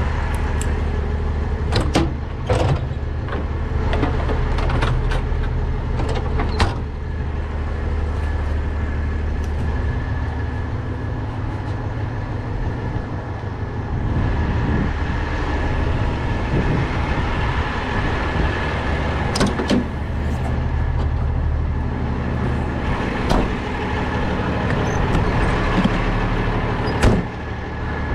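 Diesel truck engine idling steadily, with scattered sharp clicks and knocks over it.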